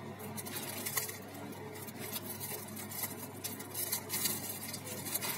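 Paper wrapper and thin plastic bag crinkling and rustling in the hands around a bread bun, in quick irregular crackles.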